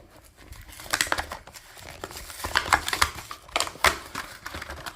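Plastic blister pack and card backing of a Matchbox die-cast toy being cracked open: irregular crinkling and crackling with sharp clicks.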